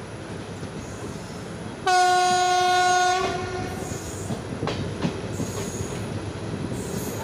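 A passenger train rumbles along the rails. About two seconds in, the hauling WAP-4 electric locomotive's horn gives one loud, steady single-note blast of about a second and a half. A few sharp rail-joint clicks follow later.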